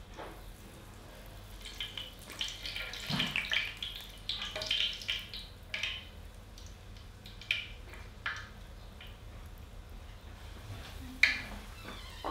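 Balls of luqaimat dough frying in hot oil in a pan, sizzling and crackling in irregular spurts, with a few sharper pops.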